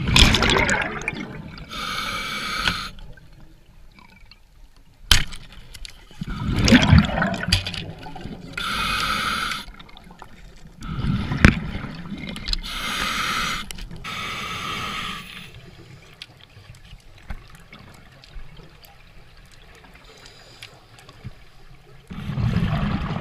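Scuba diver breathing through a regulator underwater. Several one-second inhalation hisses alternate with rumbling bursts of exhaled bubbles, with a sharp click about five seconds in.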